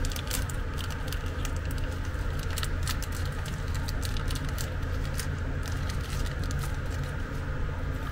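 Small plastic packet rustling and crinkling with scattered light clicks as new power transistors are handled and taken out by hand, over a steady low mains hum.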